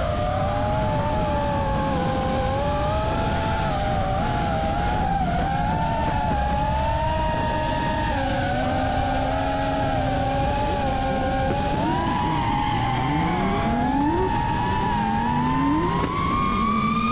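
FPV racing drone's motors and propellers whining, the pitch wavering up and down with the throttle. Under it a drag car's engine accelerates hard, its note climbing steeply twice near the end.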